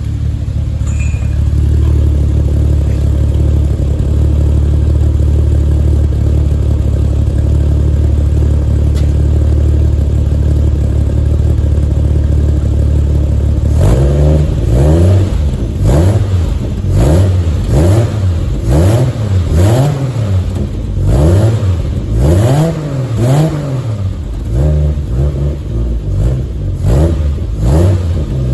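1967 Triumph Vitesse 2-litre straight-six, freshly rebuilt with refurbished carburettors that are not yet tuned or balanced, running through a stainless steel exhaust. It idles steadily, then from about halfway on it is revved in short blips, roughly one a second, each rising and falling.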